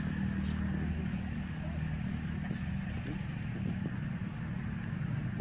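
A running engine's steady low drone, with a few faint clicks in the middle of it.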